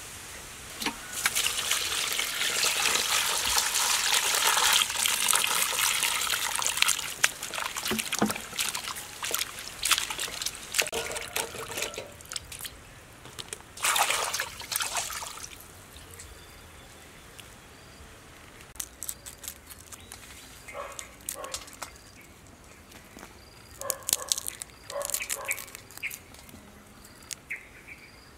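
Water pouring and splashing into a metal bowl as fresh vegetables, chilies and tamarind pods are washed, loudest for the first several seconds with a second short pour midway. Then quieter clicks and rustles of the wet produce being handled.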